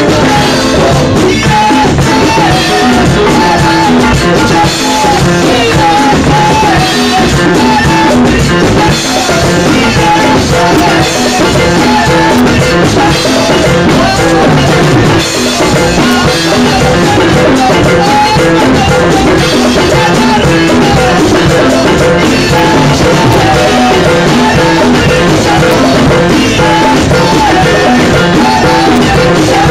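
Live Spanish-language worship music: a woman singing lead through a microphone, with others singing along, over a band with a drum kit keeping a steady beat.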